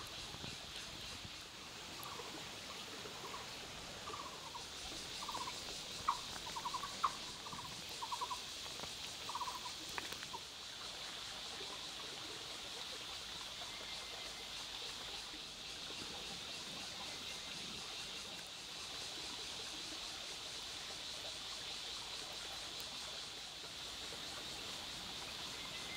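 Faint outdoor ambience: a steady high insect drone, with short trilled bird calls repeating during roughly the first ten seconds.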